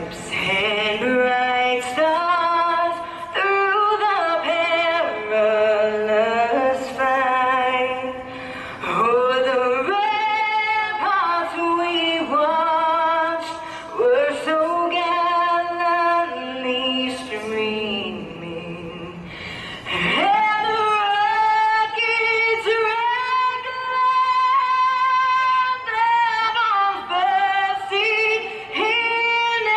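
A woman singing solo, with long held notes and vibrato, in the style of a national anthem performance before a race flyover.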